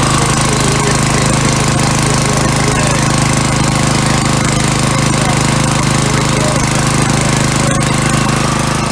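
Honda single-cylinder four-stroke petrol engine running steadily at a constant speed, powering the pressure-washer and generator rig.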